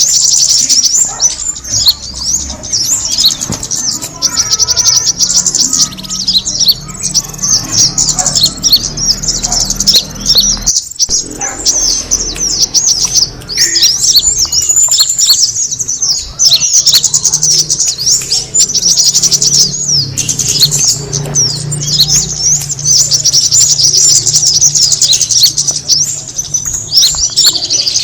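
Kemade bird lure call: an unbroken stream of rapid, high-pitched chirps and twitters used to attract birds of the same kind.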